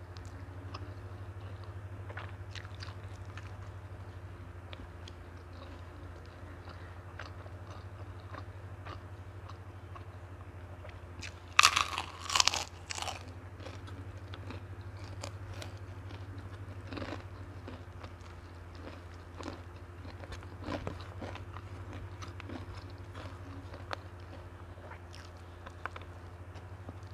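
Close-up eating sounds of a person eating rice and side dishes with her fingers: soft chewing and mouth clicks, with a short run of loud crunchy bites about halfway through. A steady low hum runs underneath.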